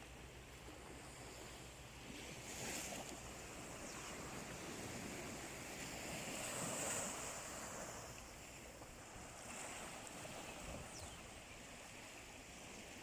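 Sea waves breaking and washing onto the shore, swelling twice, loudest about seven seconds in.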